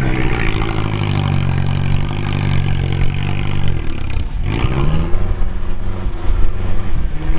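Engine of a lifted Lancia Delta on large mud tyres, working under load as the car drives down into a water-filled bog rut. About four seconds in the revs drop briefly and climb again.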